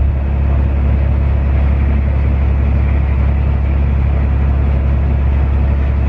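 John Deere 8400 tractor engine running steadily under load, heard from inside its cab as a deep, even drone, with a John Deere 9870 combine harvesting corn alongside.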